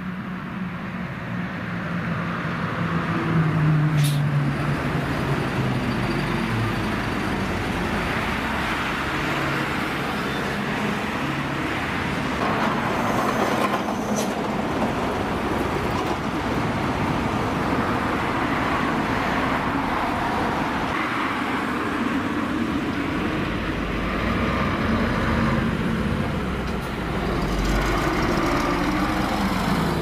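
Diesel city bus in service as a rail-replacement bus, pulling up close by: its engine note falls as it slows, then the engine runs steadily, with a few short sharp sounds about four seconds in and again midway. Near the end the engine's low rumble grows louder again.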